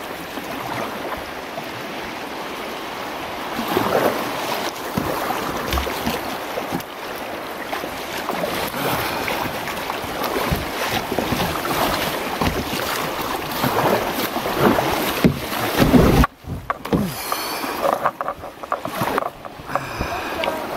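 Kayak paddling on a creek: the paddle blades dip and splash in repeated strokes while water washes against the hull, with wind buffeting the microphone. The sound drops out briefly about sixteen seconds in.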